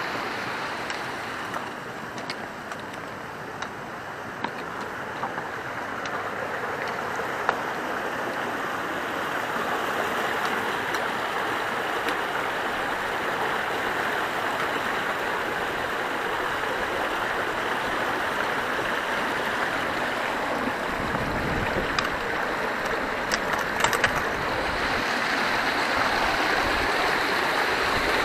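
Running water of a stream, a steady rush that grows slightly louder in the second half, with a brief low rumble about twenty seconds in.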